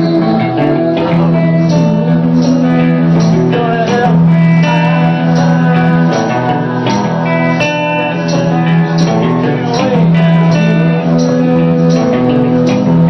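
A live rock band playing a song: guitars and bass holding chords over a steady beat of regular sharp hits, with some singing.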